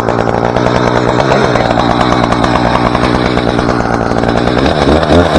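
Chainsaw running in a cut while the face notch is sawn into a spruce trunk, the engine at a steady pitch and then rising and falling in speed near the end.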